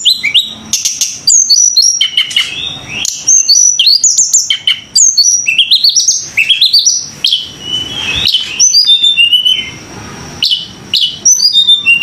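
A songbird singing loudly and without pause: rapid whistled chirps and short rising and falling notes, with a run of rising notes about halfway through.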